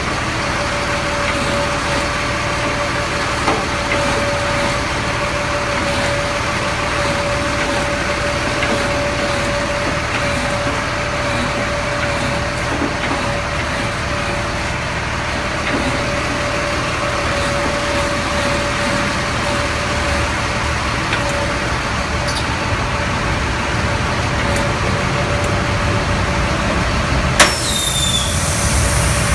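Fuel truck's engine running steadily with the PTO engaged, a steady whine over it. A sharp click near the end.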